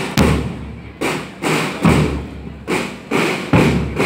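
Marching-band drums beating a steady cadence, led by bass drum strokes about once a second with lighter drum hits between.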